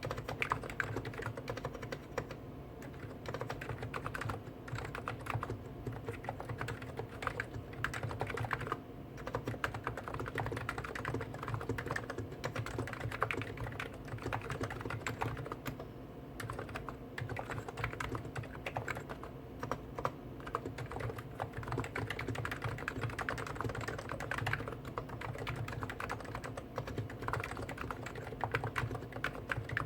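Two Hansung GTune electrostatic capacitive (Topre-style) keyboards, a 50 g Snow White and a 55 g OfficeMaster, typed on at the same time. The result is a dense, continuous clatter of soft keystrokes.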